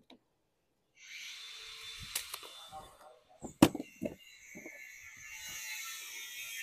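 A few short knocks and one sharp, loud click about three and a half seconds in, over a steady hiss that starts after a second of silence.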